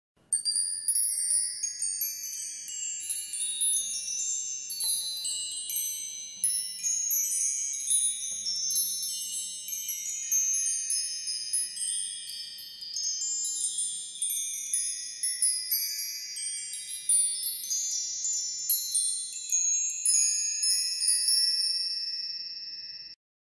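Wind chimes ringing: many small bright metal tones struck at random and overlapping one another, cutting off suddenly near the end.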